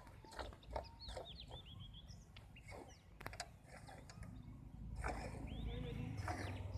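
Birds chirping in short high calls, over soft rhythmic swishes of milk squirting into a pail as a cow is milked by hand.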